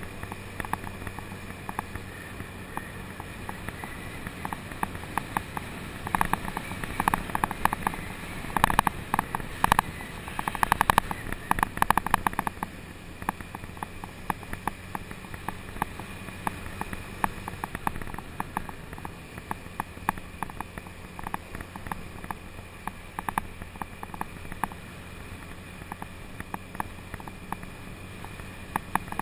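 Scooter engine running at a steady cruise, picked up by a GoPro on the bike, with wind and road noise and a run of small clicks and knocks that thickens for several seconds in the first half.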